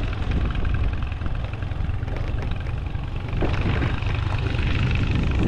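A vehicle on the move: a steady low rumble of engine and road noise.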